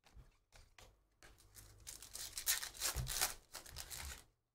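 2023 Panini Phoenix football cards sliding and rustling against each other as they are flipped through by hand. A few light clicks come first, then about a second in a stretch of scraping that lasts about three seconds.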